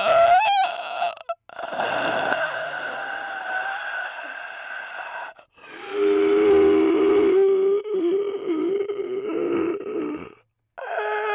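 A person's voice making long, drawn-out groaning, snore-like noises, playing a snoring old man for comic effect. There are several stretches of a few seconds each with short breaks between them; the one in the second half is lower-pitched and wavers.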